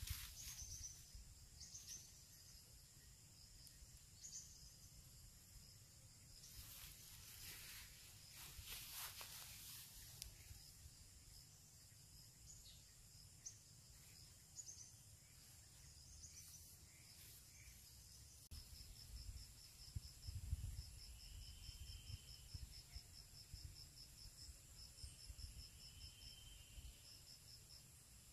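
Faint tropical forest ambience: insects droning in steady high tones, joined about two-thirds of the way in by a rapid, evenly pulsing insect call. Two short arching calls come near the end, and there is some soft rustling in the first third.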